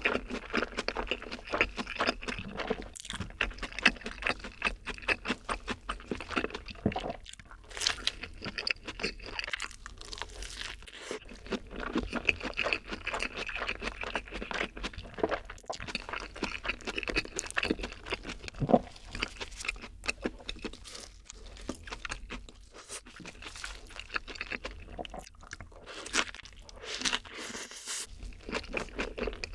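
Close-miked eating of a burger: biting into the soft bun and chewing with wet mouth sounds and many small crunches, continuing through.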